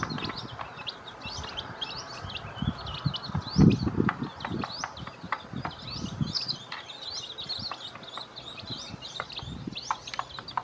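Newly hatched chicks peeping constantly in quick, high chirps, with sharp clicks of beaks pecking at feed on a plate and a few low thuds, the loudest a little under four seconds in.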